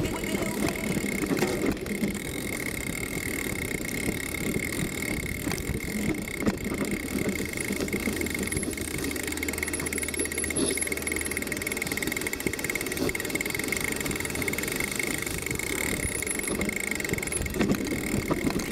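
Bike riding over a rough grassy dirt trail: a constant rumble and rattle from the ground, with a steady thin high whine throughout.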